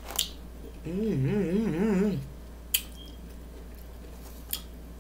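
A woman humming a long wavering "mmm" of enjoyment through a mouthful of food for about a second, then two short clicks.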